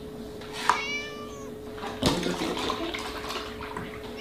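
A cat meowing once, a call falling in pitch about a second in. A sharp knock comes about two seconds in, over a steady hum and a noisy background.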